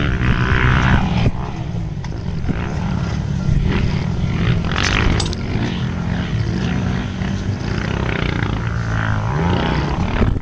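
Honda CRF450 dirt bike's single-cylinder four-stroke engine revving up and down as it is ridden around a motocross track, its pitch rising and falling repeatedly.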